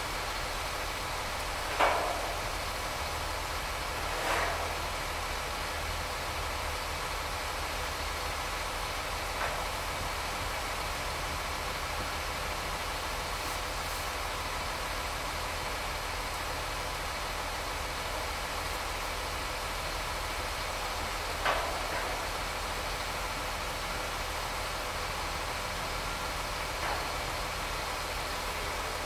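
Heavy construction machinery engine running steadily, with a few sharp knocks at irregular intervals, the loudest about two seconds in.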